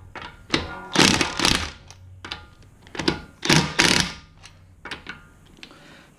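Metal hand tools working on a car wheel while it is being removed: a run of sharp clunks and clicks, about two a second in short groups, some with a brief metallic ring.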